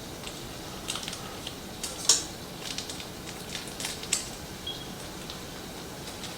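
Light clicks and taps of kitchen utensils and containers being handled during food prep, the sharpest about two seconds in and again about four seconds in.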